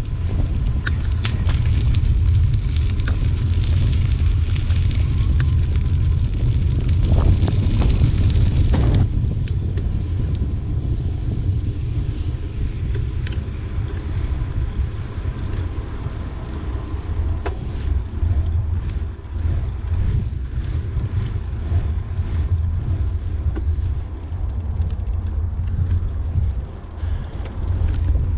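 Wind rumbling across the microphone of a camera on a moving bicycle, with tyre noise on tarmac and scattered small clicks and knocks. It is heaviest over the first nine seconds or so.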